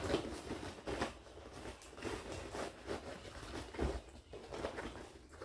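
Hands rummaging in a fabric school backpack: irregular rustling of the bag's fabric and the things inside it, with a few soft knocks and scrapes.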